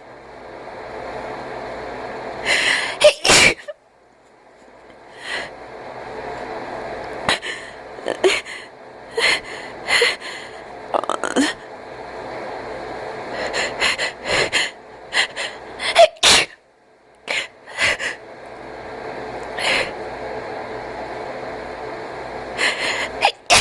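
A cat sneezing over and over in fits, with wheezy, noisy breathing that swells between the fits. The sharp sneezes come in clusters about three seconds in, from about eight to sixteen seconds, and again near the end.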